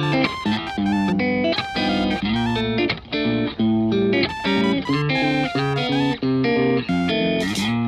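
Background music: a guitar melody of quick plucked notes over a bass line, with drum hits coming in near the end.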